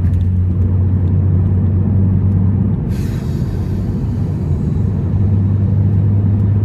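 Steady engine and road rumble inside the cabin of a car driving at highway speed, with a brief hiss about three seconds in that fades away.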